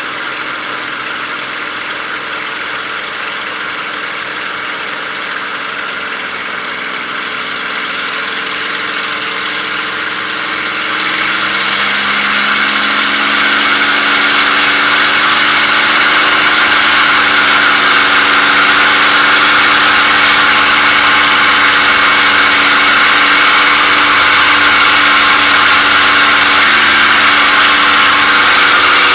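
P-51 Mustang's Packard Merlin V-12 engine running at low power, then throttled up to takeoff power about eleven seconds in. The engine note rises over a few seconds and then holds loud and steady, with strong propeller and wind hiss, heard from inside the cockpit during the takeoff roll.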